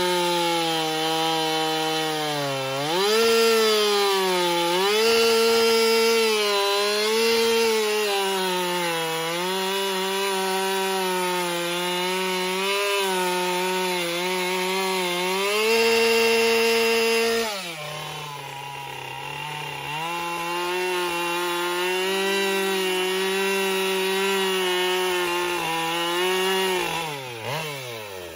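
Chainsaw engine running at high speed while carving into a log, its pitch dipping and recovering again and again as the chain bites into the wood. About seventeen seconds in it eases off to a lower, quieter speed, then picks up again and is revved quickly up and down near the end.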